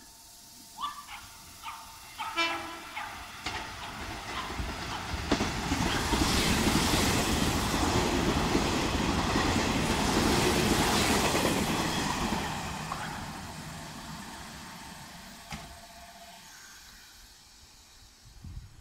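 Nishitetsu train passing through the station without stopping: wheel and rail noise swells over a few seconds, stays loud for about six seconds, then fades away. A short horn sounds about two seconds in.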